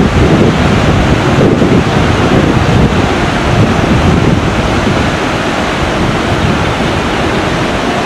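Whitewater mountain river rushing over boulders, a loud steady roar of water, with wind buffeting the microphone.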